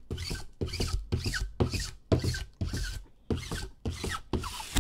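Rhythmic rasping rubbing strokes, about two a second, each a short scrape.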